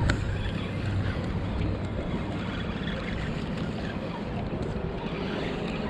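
Steady wind buffeting the microphone over the low wash of open water, with a single sharp click right at the start.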